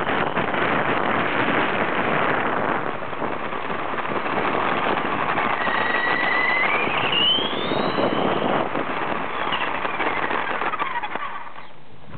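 Small electric motor of a Losi XXX-S radio-controlled car, heard from a camera mounted on the car, whining over the rush of its tyres on asphalt, with the battery short of charge. About halfway through the motor's whine rises in pitch, then glides back down, and the noise drops off as the car stops near the end.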